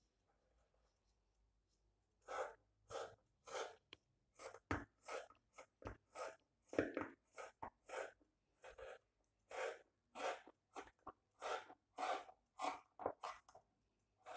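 Scissors snipping through thick woven jellaba fabric in a run of short cuts, roughly two a second, starting about two seconds in.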